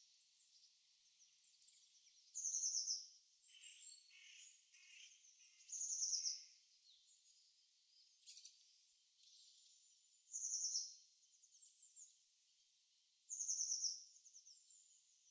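Wild songbirds singing: four short, quick, high-pitched trilled phrases about every three to four seconds, with softer chirps between them.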